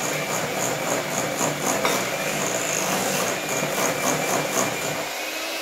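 Electric hand mixer running steadily, its beaters whisking thick cake batter of creamed butter, sugar and eggs in a mixing bowl, with a steady high whine.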